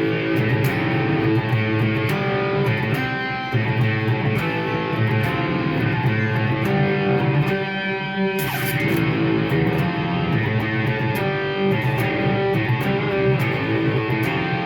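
Electric guitar played through a Marshall MG100HFX amplifier head, with notes and riffs running continuously. About eight and a half seconds in, after a brief dip, there is a short noisy burst.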